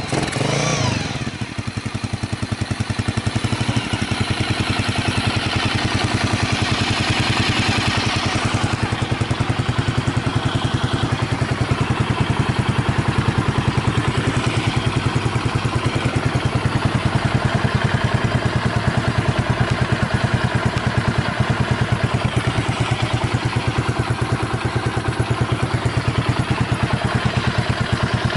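Honda GB250 Clubman's single-cylinder four-stroke engine running through an aftermarket Peyton Place muffler: the revs fall back from a brief blip in the first second or two, then it settles into a steady, even idle. The engine is in good running order, with no abnormal noises.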